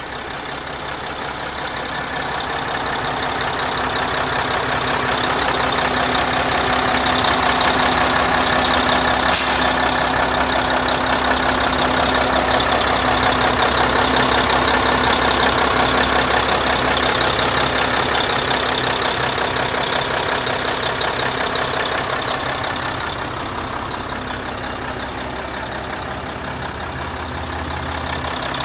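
Mack R-Model truck's diesel engine idling steadily, heard through the open hood. It grows louder over the first several seconds and turns quieter and duller near the end.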